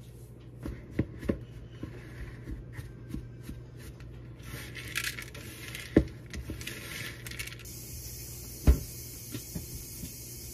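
Baking utensils clattering while cookie dough is made: plastic measuring spoons clicking against a plastic mixing bowl, a few seconds of a spatula scraping and stirring the dough about halfway through, and two sharp knocks, the louder one near the end.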